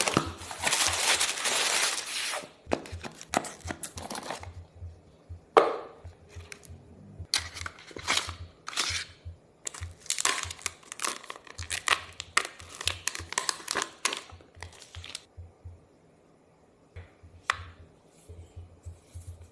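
Phone box packaging being torn open and crinkled by hand: a long tear at the start, then a run of short rustles and crinkles that thin out and grow faint in the last few seconds.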